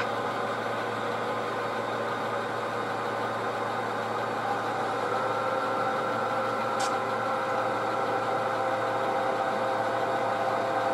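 HO scale model diesel locomotive's engine sound running steadily as the locomotive shoves a string of freight cars, its held tones growing stronger about five seconds in. A short click sounds about seven seconds in.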